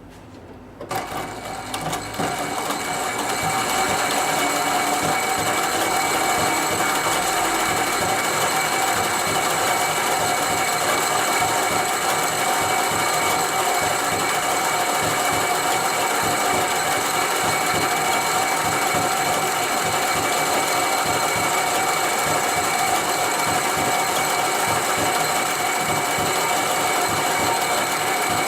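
HIGHTEX 204-370DP extra-heavy-duty post-bed double-needle sewing machine starting about a second in, building up over the next couple of seconds, then running steadily at speed, stitching with thick thread.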